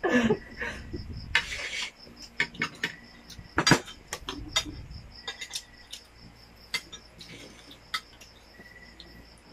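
Scattered clinks and taps of plates, a bowl and a spoon during a meal, over a steady pulsing insect chirp that sounds like a cricket. A short rustle comes about a second and a half in.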